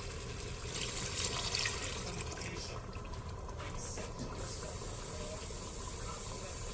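Water pouring steadily as water is added for cooking pulao, louder for a moment about a second in.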